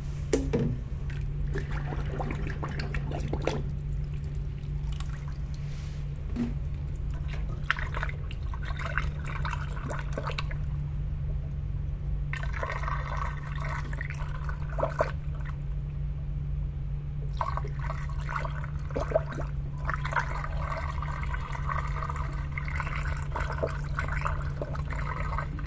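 Water pouring and trickling into a DAB E.sybox pump as it is primed, in spells that stop and start several times, over a steady low hum.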